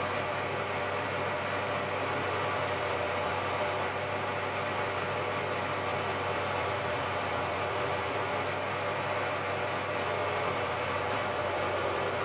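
Bridgeport milling machine running steadily as a small end mill cuts the baffle edge of a cast iron piston. A thin high whine comes and goes several times, each time for about one to two seconds.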